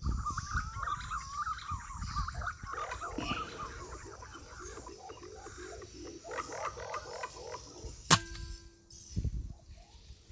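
Birds calling and chirping in the trees. About eight seconds in comes a single sharp air rifle shot with a short ring after it.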